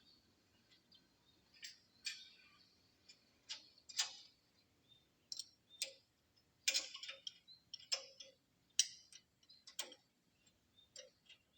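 Hand tools working the nuts and screws on an automatic planer's tabletop: faint, sharp metallic clicks and taps at irregular intervals, a dozen or so, some with a brief ring.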